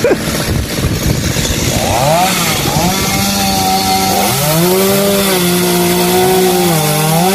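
Gas chainsaw revved up to full speed about two seconds in and cutting through a tree limb. Its engine note holds high and dips several times as the chain bites into the wood.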